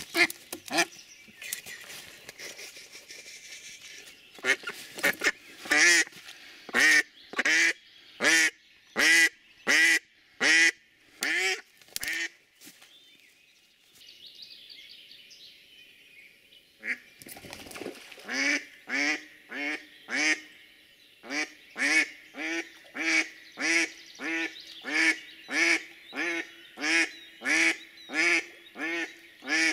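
Domestic decoy hen duck quacking in long, evenly spaced series, about one and a half quacks a second: one run, a pause of a few seconds, then a longer run. This is the hen's calling that draws wild drakes in to the decoy.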